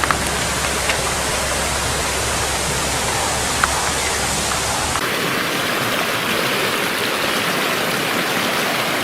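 Rushing stream water making a steady, dense rush. About five seconds in, the low rumble drops away abruptly. A single short click comes partway through.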